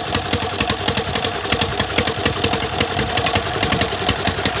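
8 hp single-cylinder diesel engine of a farm water-pump set running steadily, with an even, rapid knocking beat of about ten firing strokes a second.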